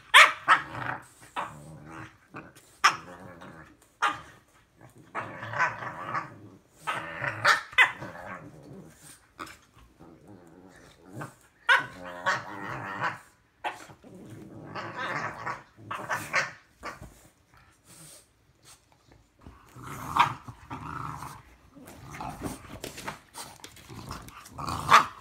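French bulldog and English bulldog puppy play-fighting: growling in bouts of a second or two, again and again, with short sharp yaps between them.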